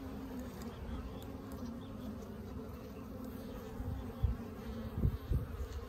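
Honeybees buzzing steadily around an opened hive during a frame inspection, a dense, even hum. A few low thumps come in during the second half.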